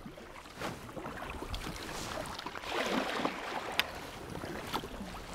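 Sea kayak paddling on open sea: paddle blades dipping and splashing and water slapping along the hull, with a louder rush of water about three seconds in and some wind on the microphone.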